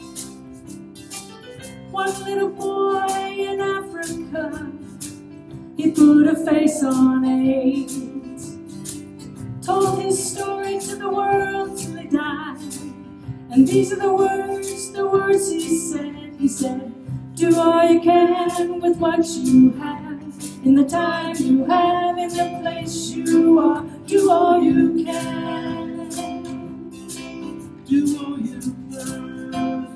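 A woman singing a song in phrases over a strummed acoustic guitar, played live by a small band.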